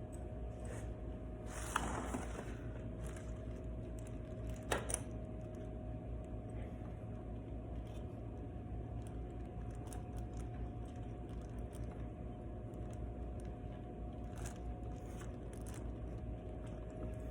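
Steady low hum with a faint steady tone, broken by a short scrape about two seconds in, a sharp click about five seconds in, and a few faint ticks later.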